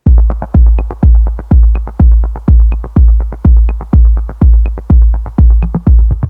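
Electronic background music with a heavy, steady bass-drum beat, about two kicks a second, and light percussion between them.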